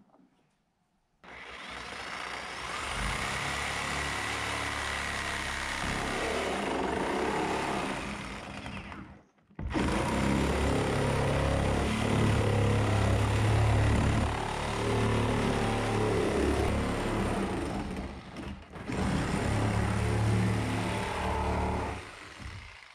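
Corded electric power saw cutting through the plastic wall of an IBC tote bladder, running in three long stretches: it starts about a second in, stops briefly twice, and cuts off just before the end.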